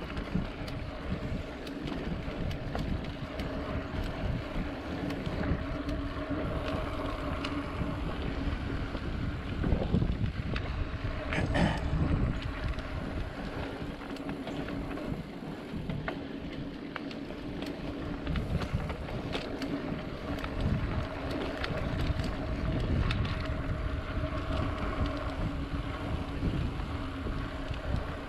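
Wind buffeting the microphone of a mountain bike rolling along a dirt trail, with tyre noise, scattered clicks and rattles, and a faint steady buzzing tone underneath.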